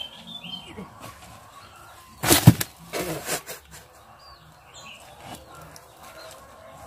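Rustling and handling as a small, ripe jackfruit is pulled open by hand among dry leaves. There is one loud, sharp burst about two and a half seconds in, with smaller ones just after, and faint bird chirps at the start.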